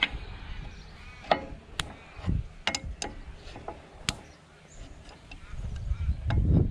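Sharp metallic clicks and clinks of an adjustable spanner working on the hydraulic hose fittings of a plough's ram as the hoses are undone, about half a dozen separate knocks. A low rumble builds near the end.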